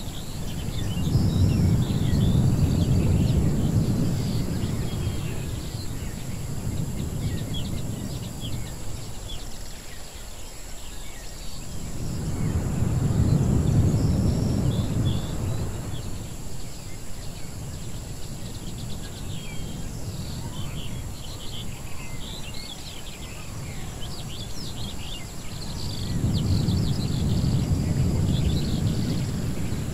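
Edited outdoor ambience: many small birds chirping throughout, over a deep rumble that swells and fades three times, about every twelve seconds.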